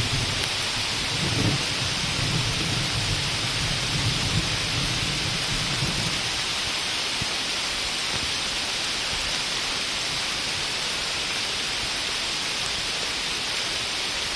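Heavy rain hissing steadily. A low rumble runs underneath and fades out about six seconds in.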